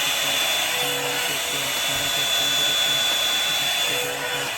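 Handheld hair dryer blowing steadily with a high whine, drying the underside layer of a wig; it drops a little in level near the end.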